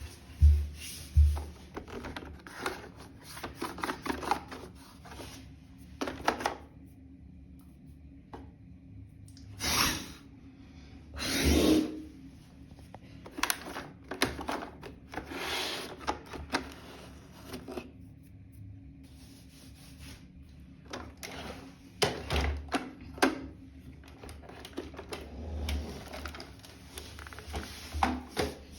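iRobot Roomba 980 robot vacuum at work: irregular clicks, knocks and scraping rattles with a few low thumps, over a faint steady hum.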